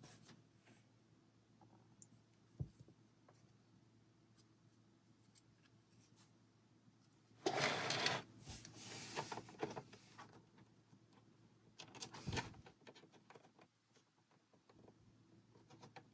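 LEGO pieces being handled during assembly: faint scattered clicks and taps, with a louder burst of rummaging about seven and a half seconds in and a shorter one near twelve seconds.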